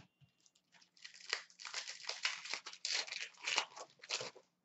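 Foil wrapper of a pack of hockey trading cards being torn open and crinkled by hand: a dense run of crackling that starts about a second in and stops shortly before the end.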